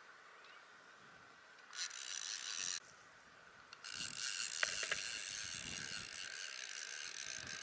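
Fly reel's click-and-pawl drag buzzing as a hooked yellow-spot trevally runs line off the reel: a burst of about a second near 2 s, then a longer run from about 4 s on.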